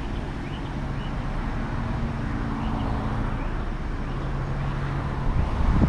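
A motor vehicle's engine running with a steady low hum amid road traffic noise, with a louder low rumble near the end.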